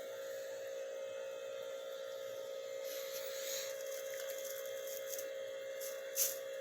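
Steady electrical hum from the Douglas Fir animatronic tree's speaker as it is fed through its aux input, with a brief click near the end.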